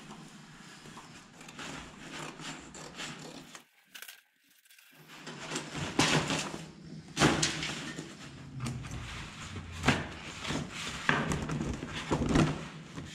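Stiff template paper being handled and cut with scissors: irregular rustling and crinkling with sharper crackles of the sheet, busiest in the second half.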